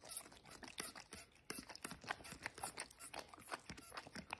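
A dog licking the plastic nozzle of a spray bottle, a quick, irregular run of small tongue-and-mouth clicks.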